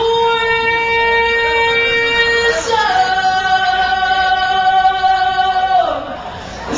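Female rock vocalist singing long sustained notes live through a PA, with no drums. She holds one note, slides up to a higher note about two and a half seconds in and holds it, then it fades near the end.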